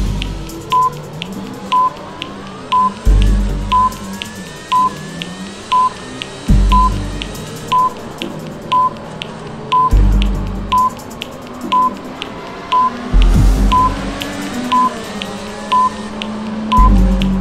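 Countdown timer beeping, a short even-pitched beep about once a second, over electronic music with a heavy bass hit every three to four seconds.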